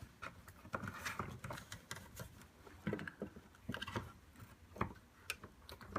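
A stiffened fabric cape rustling and soft small clicks as it and the action figure are handled and posed by hand, in short irregular touches.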